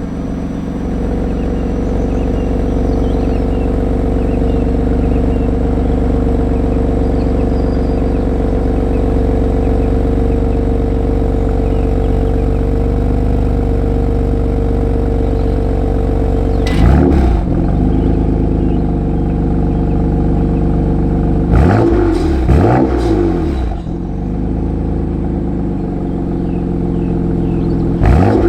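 BMW M2 Competition's twin-turbo inline-six idling steadily through its stock exhaust with a resonator delete and a petrol particulate filter. About 17 s in it is revved once, then blipped two or three times in quick succession around 22 s, with another rev starting near the end.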